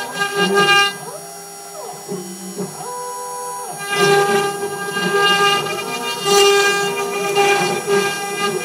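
CNC router spindle running with a conical engraving bit cutting into wood, a steady whine over the cutting noise. About a second in, the cutting sound drops away for roughly three seconds, and the machine's motors whine in steps that rise, hold and fall, before the cut picks up again.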